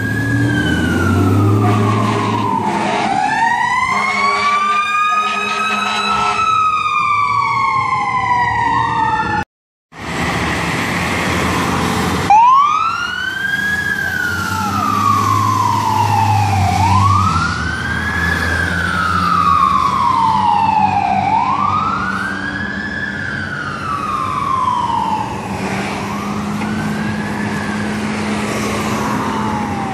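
Fire truck sirens wailing, the pitch rising and falling about every four seconds over the rumble of the truck's engine. Two sirens overlap at first, then the sound breaks off briefly about a third of the way in and a single wailing siren carries on.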